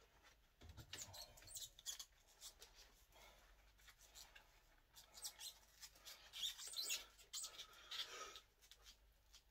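Faint rustling and scratching of cloth wraps being handled and squeezed around a short steel bolt held for a bending attempt, with a dull bump a little under a second in.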